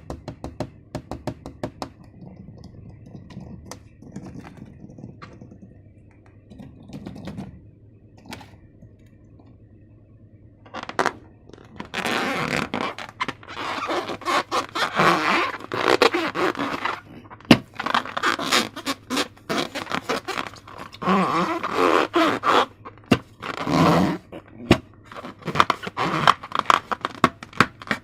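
Slime and balloon materials being handled by hand: scattered clicks and taps, then about eleven seconds in a long stretch of dense, irregular scraping and crackling.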